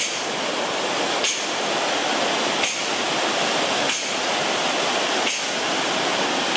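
Small waterfall rushing over rocks: a steady, even rush of water. Over it a faint, sharp clink repeats at a steady pace, about once every 1.3 seconds.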